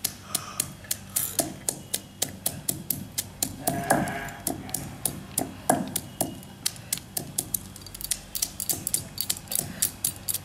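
Stone muller (nora) pounding garlic cloves on a flat stone grinding slab (shil), crushing them coarsely: a steady run of sharp knocks, about four a second.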